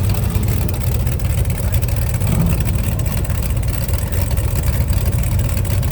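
A loud hot rod engine idling steadily, its low exhaust note pulsing rapidly.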